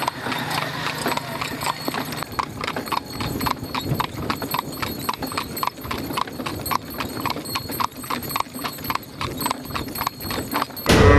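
Horse's hooves clip-clopping at a steady trot on a dirt road, about three hoof beats a second, as it pulls a two-wheeled horse cart (tanga).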